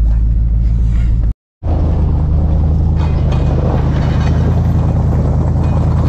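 Steady engine drone and road noise of a vehicle heard from inside the cab. It drops out completely for a moment just over a second in, then the plow truck's engine drones on steadily as it drives the snowy road.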